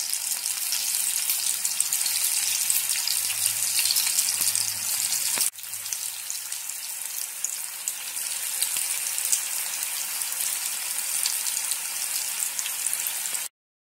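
Cabbage vada pieces deep-frying in hot oil in a pan: a steady crackling sizzle. It breaks off for an instant about five and a half seconds in, comes back a little quieter, and cuts out abruptly just before the end.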